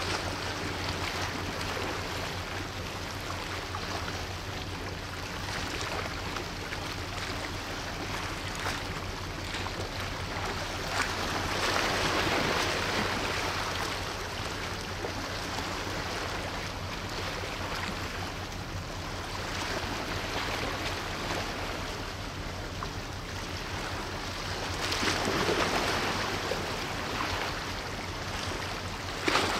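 Steady rush of water from the strait and a ship's wake, swelling twice, over the low steady hum of a passing ship's engine.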